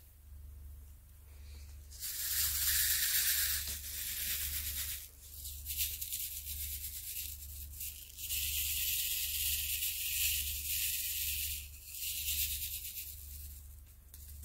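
Small plastic diamond-painting drills rattling in a plastic tray as it is shaken, in several spells of a few seconds each with short pauses between.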